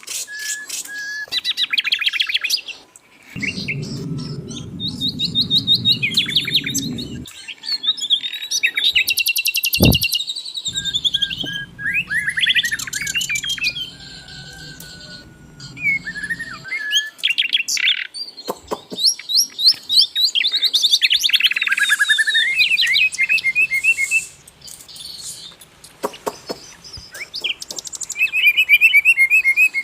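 Sikatan londo flycatcher singing a varied, fast song of chirps, rapid trills and short whistles, with hardly a pause. A steady low hum sits underneath for two stretches, and a single thump comes about ten seconds in.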